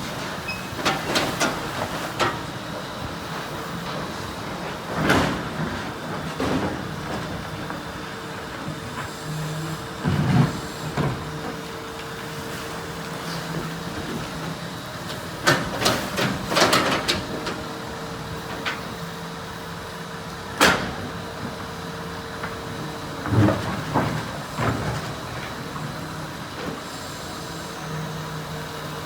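Excavator's diesel engine running steadily while it dredges, with sharp metallic clanks and knocks coming every few seconds, some in quick clusters.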